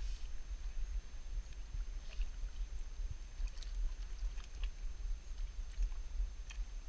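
Low, uneven rumble of wind buffeting the microphone, with scattered faint clicks and ticks from handling the fly rod and line.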